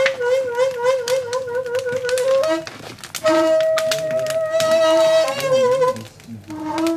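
Daegeum (Korean bamboo transverse flute) playing a slow melody of long held notes with wide vibrato. A note is held, the line rises to a higher note about three seconds in and falls back, then it drops to a low note near the end. Short sharp clicks are scattered throughout.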